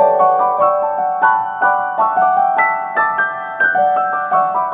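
Background piano music: a slow melody of single struck notes, about two or three a second, each ringing out and fading.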